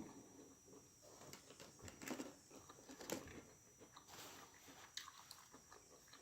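Faint chewing and mouth sounds of a person eating, with a few soft, scattered clicks.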